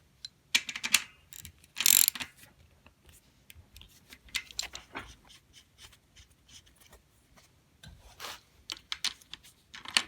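Irregular metal clicks, knocks and rattles as a bicycle rear wheel with a 7-speed cassette is fitted into the frame, with the freewheel ratcheting in short runs. The loudest clusters come about a second in, around two seconds and around eight seconds.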